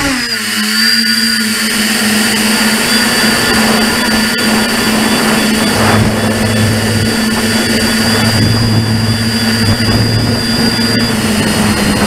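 Multirotor tricopter's electric motors and propellers whining, heard from the onboard camera; after a brief drop in pitch at the start, the tone holds steady.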